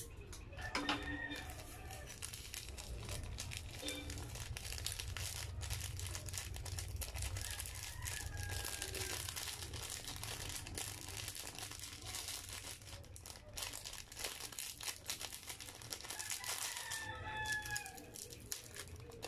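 Small plastic instant-noodle seasoning sachets crinkling and rustling as they are torn open and shaken out over a tray of noodles, over a low steady hum. A short pitched call sounds briefly near the start and again near the end.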